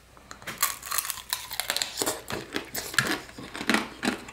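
Close-up biting and chewing of orange tanghulu: the hard sugar-candy shell, dipped thick, cracks and crunches over the peeled mandarin segments in many quick sharp crackles.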